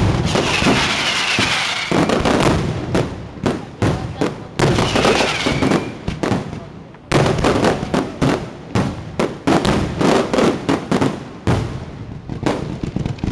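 Fireworks finale: a rapid barrage of shells bursting, many loud bangs in quick succession. There is a brief lull just before the middle, then a sudden loud bang and the barrage resumes.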